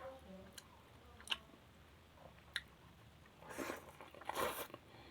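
Close-up sounds of a person chewing and biting food with the mouth: a few sharp wet mouth clicks, then two louder moist smacking bursts near the end.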